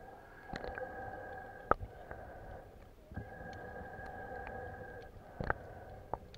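Underwater sound picked up through the camera: a steady hum that cuts out briefly about three seconds in and then comes back, with scattered faint clicks and two sharper knocks, the louder one about a second and a half in.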